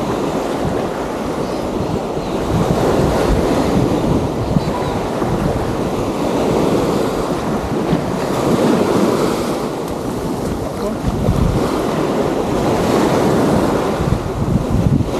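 Small waves breaking and washing up on a sandy beach, swelling and easing every few seconds, with wind buffeting the microphone.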